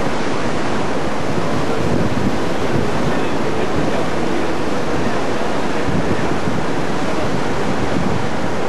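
Steady wind buffeting the microphone over a rushing wash of sea water.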